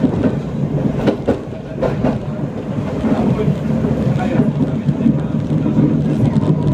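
Tram running on its rails, a steady rumble of wheels on the track with a few sharp clicks in the first two seconds and a faint steady whine underneath.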